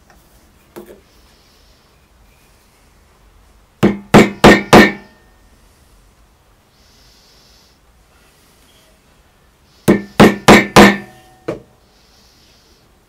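A chisel being struck with a hammer, chopping a mortise into an oak block. There is a light tap about a second in, then two quick runs of four sharp blows each, with one more blow just after the second run.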